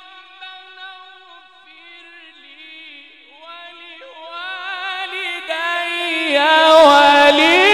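Male Qur'an reciter's voice in melismatic tajweed recitation: a long ornamented vowel, soft and wavering at first, then climbing in pitch and loudness in quick trilled steps to a loud, high passage near the end.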